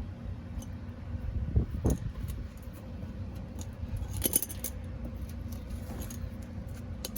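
Metal hand tools being handled, with a few light clinks and knocks, the sharpest about four seconds in, over a steady low background rumble.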